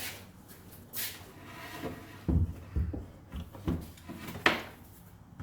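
An unbolted drill press electric motor being carried aside and set down: a few scrapes and low thuds, several knocks, and a sharp clack near the end.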